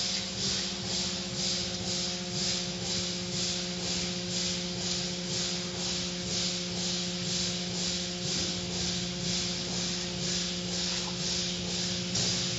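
Cloth strips of an automatic car wash's curtain brush swishing and slapping across a foam-covered car in an even rhythm of about two and a half strokes a second, over a steady machinery hum.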